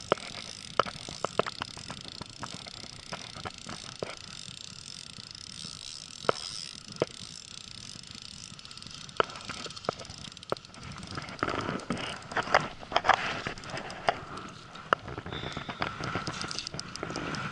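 Fishing reel being wound in on a hooked squid: scattered irregular clicks and taps from the reel and rod over a steady hiss of wind and water, busier in the last few seconds.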